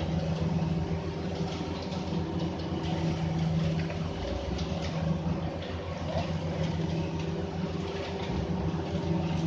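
An engine idling steadily with an even low hum, and scattered light metallic clinks from parts and tools being handled at a truck's rear brake hub.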